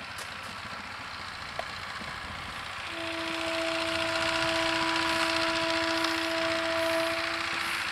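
Diesel locomotive horn sounding one long steady note, starting about three seconds in and held for about four and a half seconds, over a rising background rush.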